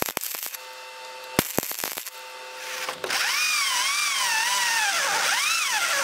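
Wire-feed welder arc crackling with scattered sharp pops. About three seconds in, an electric power drill starts boring through a steel plate, its motor whine rising and falling in pitch as the bit loads and frees.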